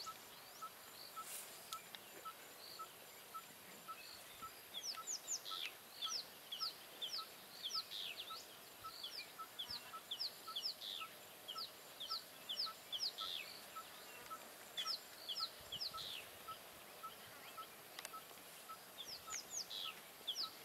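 Wild birds calling: runs of short, high, down-slurred whistles over a steady short note repeated about twice a second.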